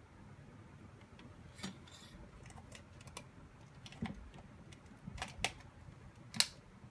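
Irregular light clicks and taps of small hard objects being handled, with the sharpest click near the end.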